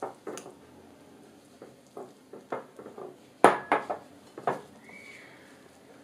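A stirring utensil knocking and scraping against a glass mixing bowl as flour is worked into a wet pumpkin dough. Irregular clinks throughout, the sharpest about three and a half seconds in and another about a second later.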